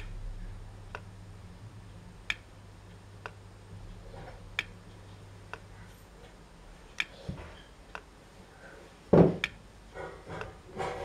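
Homemade solar mini Stirling engine ticking lightly about once a second, a little unevenly, as its clear acrylic wheel turns back and forth. A low hum underneath stops about six seconds in. A single loud thump about nine seconds in is followed by a few scattered clicks.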